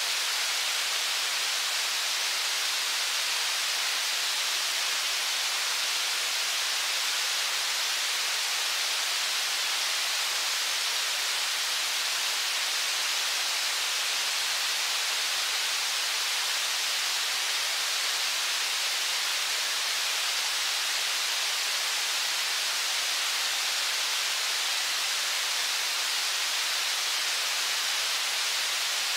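Steady rushing of the fast-flowing Brooks River's rapids below Brooks Falls: an even hiss, unchanging throughout.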